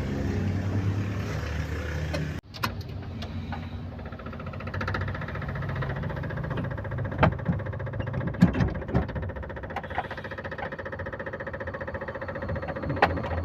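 Mitsubishi L300 van's engine running with a low rumble that stops abruptly about two seconds in. After that a quieter steady whine carries on, with scattered sharp clicks and knocks.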